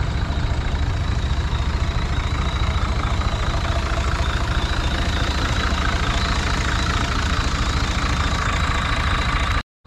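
Massey Ferguson 135 tractor engine idling steadily and evenly, like clockwork.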